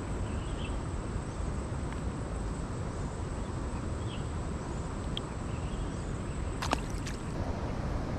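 Steady low rushing ambience of a rain-swollen stream, with a constant high insect whine and a few faint chirps. A couple of sharp clicks come near the end.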